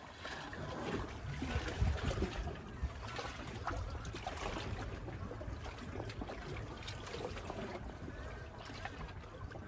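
Small sea waves lapping and splashing against the shore rocks in irregular little trickles, with a low rumble underneath.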